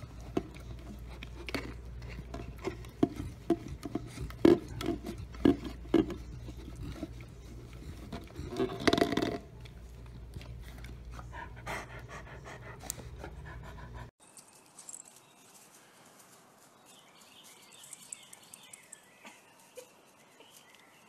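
A Great Pyrenees licking and mouthing an open peanut butter jar, with irregular wet licks and clicks and the jar knocking against the floor, one louder scuffle about nine seconds in. About fourteen seconds in the sound drops to a much quieter background with faint high chirps.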